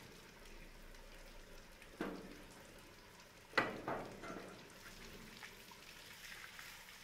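Water from a garden hose spraying onto an elephant and splashing into a muddy puddle, a steady hiss. Two sudden sharp slaps or splashes break through it, one about two seconds in and a louder one a second and a half later.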